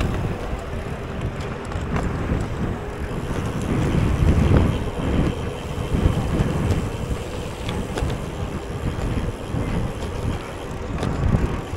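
Wind buffeting the microphone: a low rumble that swells and eases in gusts, with a few faint clicks.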